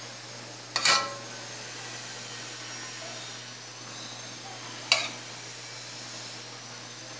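A metal spoon clinks twice against dishware, once just under a second in and again near five seconds, each clink ringing briefly, over a steady low hum.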